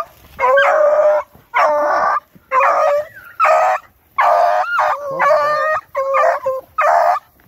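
American foxhound baying: a run of about eight long, drawn-out bays, roughly one a second, as the hound gives tongue on the trail of game.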